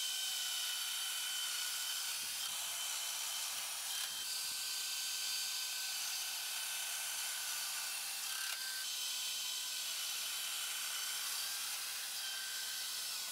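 Festool Domino XL DF 700 joiner running steadily with a high motor whine while it cuts mortises for loose-tenon domino joints. The whine shifts in pitch slightly about four and again about nine seconds in.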